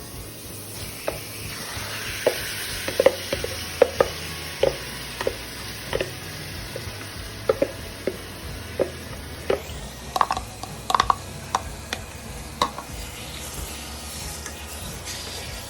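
Marinated chicken sizzling in hot oil in a pot while being stirred, with a steady hiss and irregular sharp knocks of the spoon against the pot, about one or two a second, that stop near the end.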